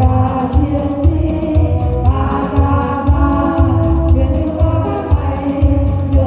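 A group of women singing a marching song together into microphones, over instrumental accompaniment with a steady low beat.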